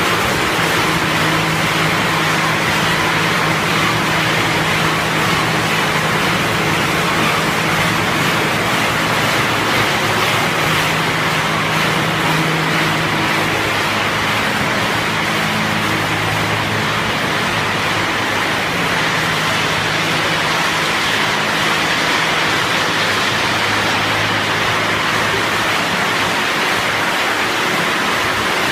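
Cashew color-sorting line machinery running steadily: a continuous rushing noise over a low, steady motor hum.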